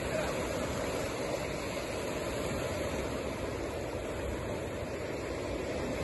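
Ocean surf washing onto a cobble beach: a steady, even rushing with no break.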